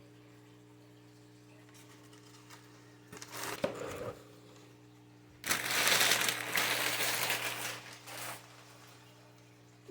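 Packing material crinkling as it is handled: a short rustle about three seconds in, then a longer, louder crinkling that lasts about three seconds. A steady low hum runs underneath.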